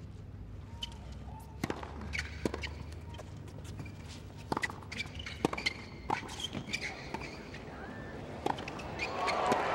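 Tennis ball being bounced before the serve and then struck back and forth in a hard-court rally: sharp racket and ball hits every second or so. Crowd noise swells near the end as the point finishes.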